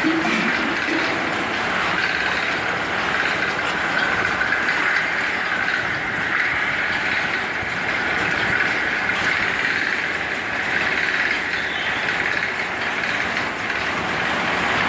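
Steady running noise of a metalworking machine, an even hiss-like din with no distinct strikes or rhythm.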